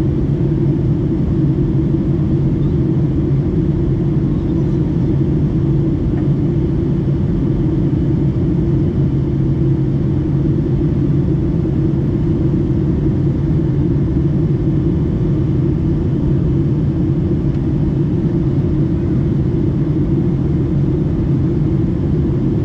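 Boeing 757-200 cabin noise: a steady drone of engines and airflow with a low hum, unchanging throughout.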